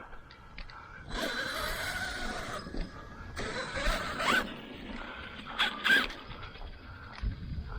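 Arrma Kraton 6S BLX RC truck's brushless motor whining up and down in pitch in two full-throttle bursts, with gravelly tire noise, followed a couple of seconds later by a few sharp knocks from the truck landing or hitting something.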